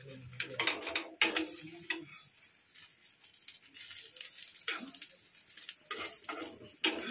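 Egg-coated bread slices sizzling steadily in hot oil in a frying pan, with a metal spatula scraping and knocking against the pan a few times as the slices are turned.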